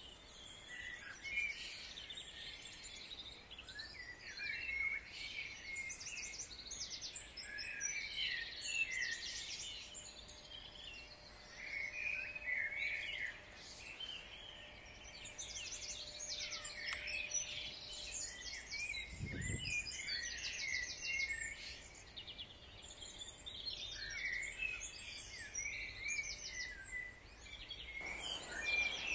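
Several small songbirds singing and calling over one another in a spring dawn-style chorus, with fast trills mixed among shorter chirps. A single low thump about nineteen seconds in.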